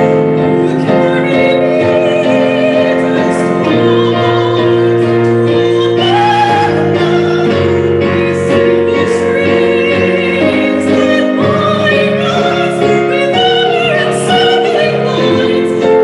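Live chamber music: a soprano sings in operatic style over cello and keyboard, with long held notes and vibrato.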